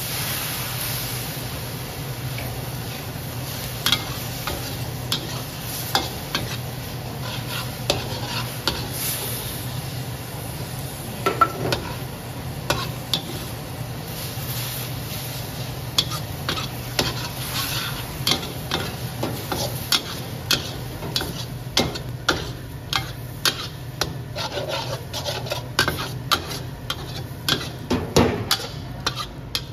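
Metal spatula stir-frying glass noodles, pork and vegetables in a steel wok, the food sizzling, with sharp clanks and scrapes of the spatula against the wok that come thicker in the second half. A steady low hum runs underneath.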